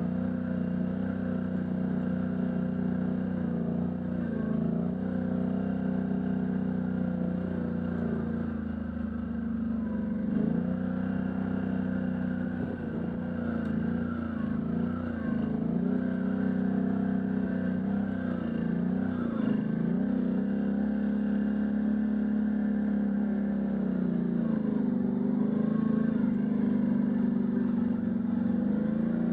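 Can-Am Outlander ATV engine running while riding. Its pitch drops and picks back up several times, about every five seconds, as engine speed eases off and comes back.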